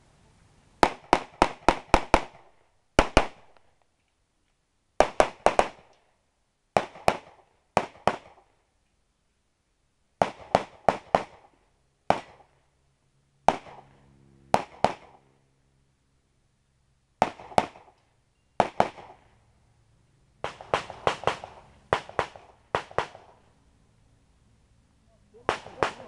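Semi-automatic pistol fired rapidly, a sharp crack per shot with a short echo, in quick pairs and runs of up to about six shots separated by pauses of one to two seconds.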